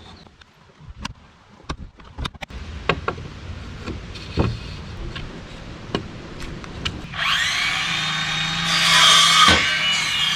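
Scattered sharp knocks and taps of wood and tools. About seven seconds in, a power tool's motor spins up and runs with a high whine.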